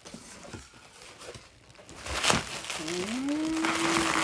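Plastic bubble wrap crinkling and rustling as it is pulled off a cardboard model box, louder from about halfway. Near the end a single drawn-out voice sound rises in pitch and then holds.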